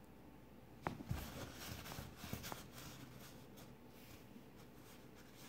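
Small handling sounds of a folding knife and its parts on a wooden tabletop: a quick run of light clicks and taps about a second in, then faint rustling.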